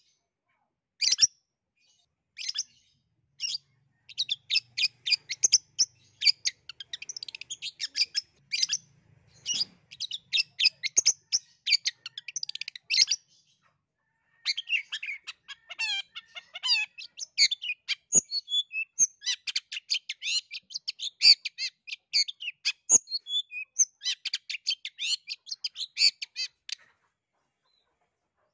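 Long-tailed shrike (cendet) singing a fast, varied stream of sharp chirps, rapid note trains and gliding whistles, with a short pause about halfway.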